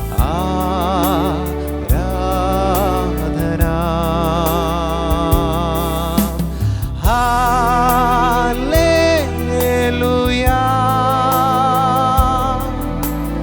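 Live worship music: keyboard playing sustained chords under a wavering, vibrato melody line, with a light ticking beat.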